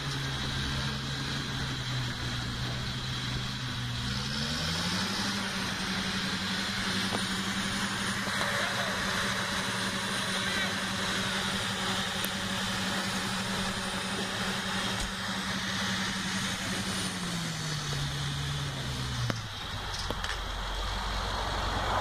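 Heavy diesel engine running steadily, then revving up about four seconds in, holding the higher revs, and dropping back down near the end.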